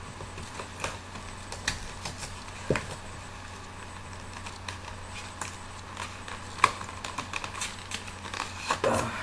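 Packaging being handled and pulled apart: scattered clicks and crackles at an uneven pace, with one sharper click about two-thirds of the way through.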